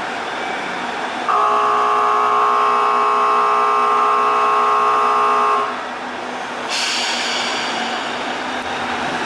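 A loud, steady departure signal of several pitched tones sounds for about four seconds, starting about a second in. Under it is the low, steady running of a KiHa 25 diesel railcar standing at the platform. A hiss begins about seven seconds in.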